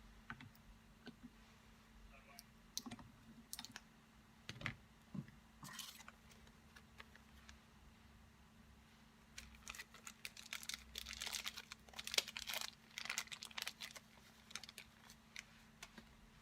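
Clicks and light rattles of small hard parts being handled, scattered at first and then a dense flurry about ten to fourteen seconds in, over a faint steady hum.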